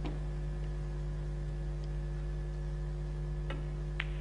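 Sharp clicks of snooker cue and balls, a faint one at the start, then two about half a second apart near the end, the second the loudest, as the cue ball is struck and meets the reds. A steady low electrical hum runs under it.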